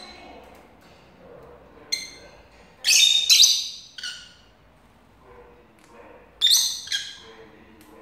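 Pet lovebirds giving short, high-pitched calls in bursts: a single call, then a loud cluster of calls past the first third, and another burst after the middle.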